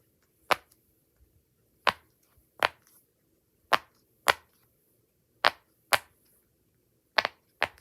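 Bubbles of a firm tie-dye pop-it fidget toy pressed down one by one, each giving a sharp click; about nine clicks at uneven intervals.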